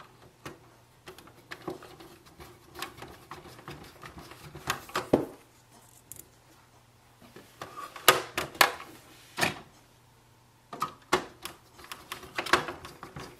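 Hand screwdriver turning small screws into a printer's plastic housing, with the clatter of handling the parts: irregular light clicks and ticks of metal on plastic, and a few louder clicks and knocks in clusters.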